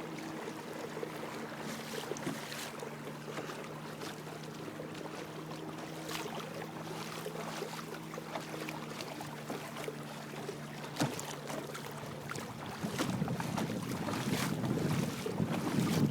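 Minn Kota 55-lb-thrust electric trolling motor running steadily at full speed on a kayak, a steady hum under water wash and small slaps. Near the end the hum stops and a louder rushing of water and wind takes over.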